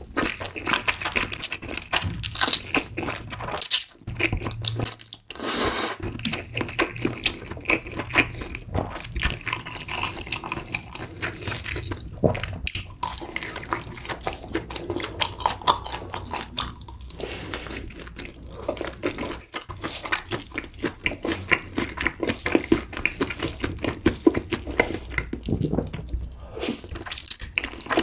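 Close-miked wet chewing and slurping of food, many small irregular wet clicks and smacks of the mouth, with a longer slurp about five seconds in.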